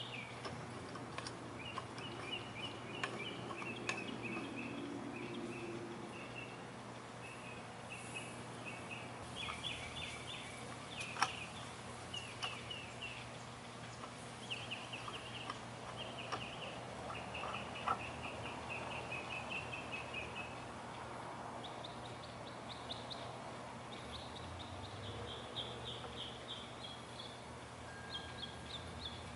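Small birds chirping in repeated rapid chattering trills, with a few sharp clicks from steel pipe clamps being adjusted and tightened; the loudest click comes about 11 seconds in.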